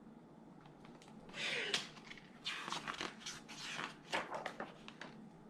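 Faint paper rustling and crinkling, with scattered soft clicks in the second half: book pages being handled.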